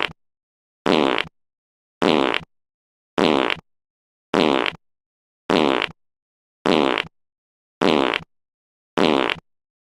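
A recorded fart sound played on a loop, each copy identical. Each lasts about half a second and they come about one every 1.2 seconds, with dead silence between, some nine times over.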